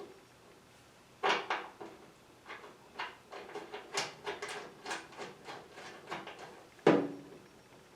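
A series of knocks and clatters: a sharp knock about a second in, a run of light clicks and clanks, then a loud knock near the end.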